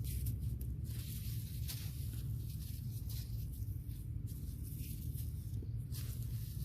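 Repeated short rustling and scraping sounds, several times over a steady low rumble.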